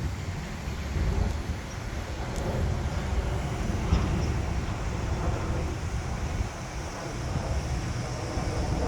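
Outdoor ambience dominated by wind rumbling and buffeting on the microphone, a steady low noise that swells and eases.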